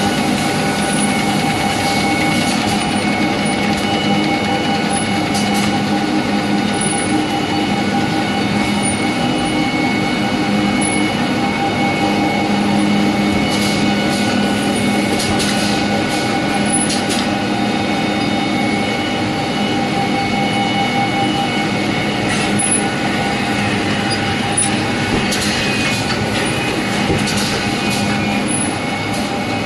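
A4 cut-size paper cutting and packing line running: a steady mechanical drone with several held tones, and occasional light clicks and ticks from the moving parts.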